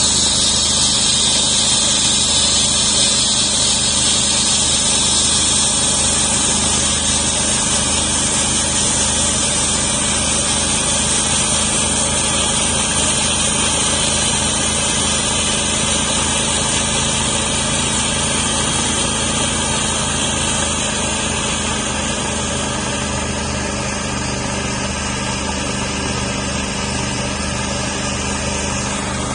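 Homemade sawmill's engine running steadily while its blade cuts through a spalted maple log, with a high-pitched hiss from the cut that eases off about two-thirds of the way through.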